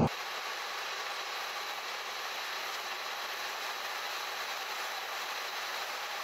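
Steady, even hiss of road noise inside a moving vehicle, with no low rumble and no separate knocks or events.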